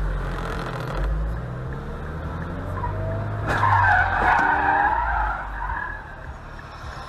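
A car engine revving hard under acceleration. About three and a half seconds in comes a loud tyre screech of about two seconds with a thump, as a sports car skids into another car in a crash.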